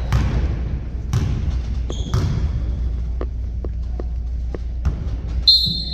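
Basketball game in a gym: a ball bouncing on the court in a series of sharp thuds over a steady low din from the hall, with a brief high-pitched tone about five and a half seconds in.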